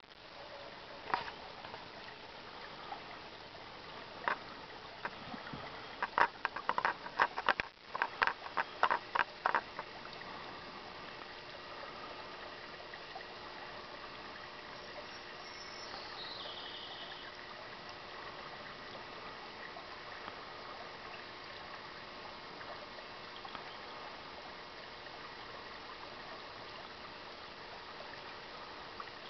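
Shallow creek trickling steadily over gravel. In the first ten seconds it is overlaid by a series of sharp clicks and taps, bunched most thickly in the few seconds before the water alone carries on.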